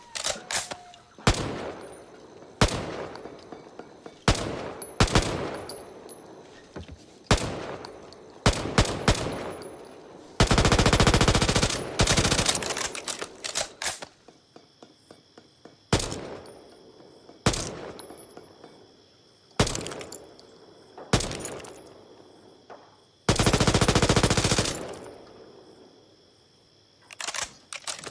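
H&K MP5A5 9 mm submachine gun firing single shots and short bursts, each shot trailing off in a reverberant tail. Two long fully automatic bursts of about a second and a half come about ten seconds in and again near the end.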